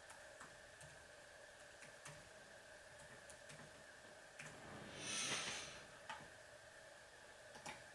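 Sparse light keystrokes on an Apple aluminium keyboard, a short breathy puff of air about five seconds in, and a couple of mouse clicks near the end, over a faint steady hum.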